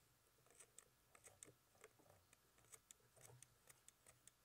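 Fly-tying scissors trimming a spun deer-hair fly head: a series of faint, irregular snips.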